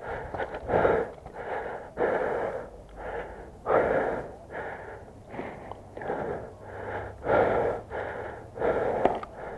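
A person breathing heavily and close to the microphone, with a noisy puff of breath about once a second.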